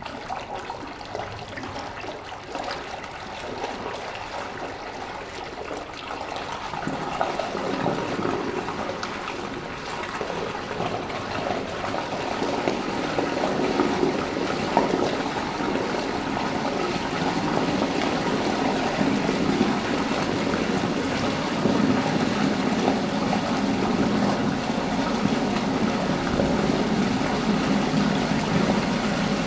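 Steady rushing, swirling water, growing gradually louder and deeper in tone as it goes.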